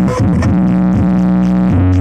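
Loud electronic dance music with heavy synth bass notes, each held for about half a second to a second before changing pitch, played through a large sound system with 20 subwoofers during a sound check.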